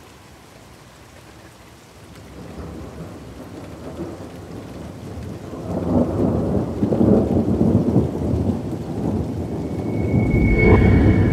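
Rain and rolling thunder: a steady rain hiss with deep thunder rumbles that grow louder, swelling about six seconds in and again near the end, where a brief high ringing tone also sounds.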